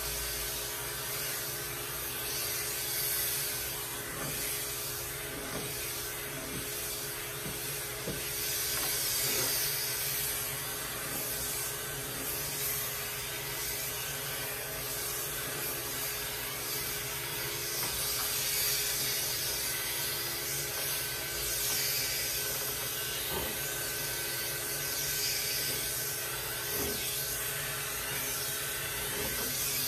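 Electric grooming clipper fitted with a clipper-vac suction hose, running steadily while being worked through a Persian cat's long coat. There is a constant airy suction hiss over the clipper motor's hum.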